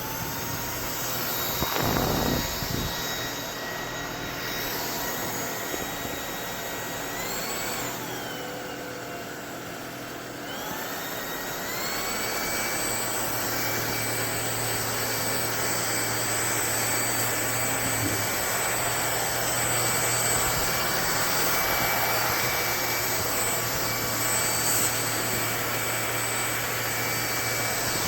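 Lubluelu cordless stick vacuum's brushless motor running with a steady whine. It changes speed about eight seconds in, drops, then rises to a higher, louder steady pitch around eleven seconds in.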